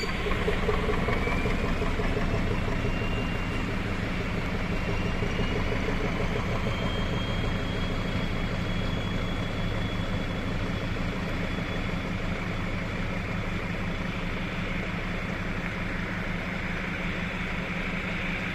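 Diesel locomotive engine running steadily under load as it hauls a passenger train away, a low even rumble. A faint high whine rises in pitch over the first several seconds and then holds.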